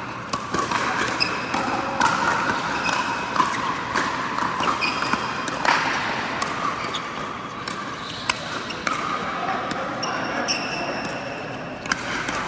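Pickleball play on an indoor court: sharp, irregularly spaced pops of paddles hitting the plastic ball and the ball bouncing, with brief high squeaks of shoes on the court floor.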